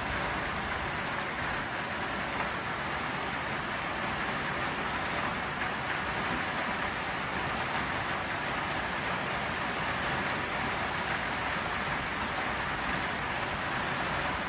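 Steady rain falling: an even, unbroken hiss of rain.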